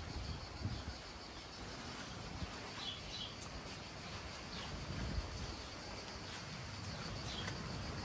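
Outdoor ambience with a steady insect drone and a few short bird chirps, about three seconds in and again near the end, over a low, uneven wind rumble on the microphone.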